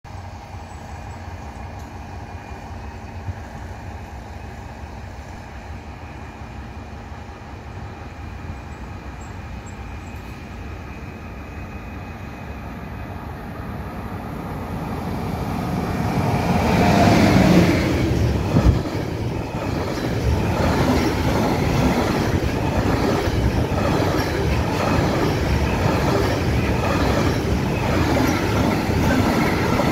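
Container freight train passing through the station behind a locomotive. A low rumble grows as it approaches and is loudest as the locomotive goes by about seventeen seconds in, with a hum that falls in pitch. Then comes the steady rumble and clatter of loaded container wagons rolling past close by.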